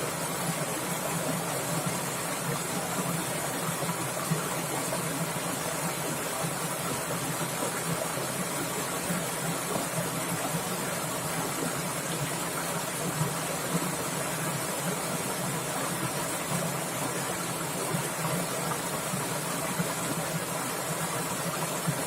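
Swift forest stream rushing and splashing over rocks in a steady, even hiss.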